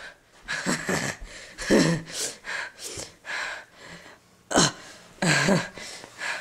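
Young voices making short wordless vocal sounds: gasps, grunts and breathy exclamations in about five bursts, some with a cry that slides up and down in pitch.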